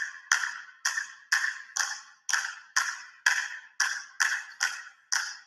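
Basketballs being dribbled on a gym floor: sharp bounces in a steady rhythm of about two to three a second, each ringing briefly off the gym walls.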